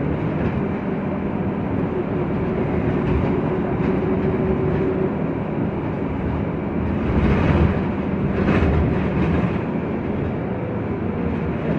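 Interior sound of a VDL Citea LLE city bus driving along at a steady speed: its Cummins ISB6.7 engine drones steadily under road and tyre noise. A couple of louder bumps and rattles come about seven and eight and a half seconds in.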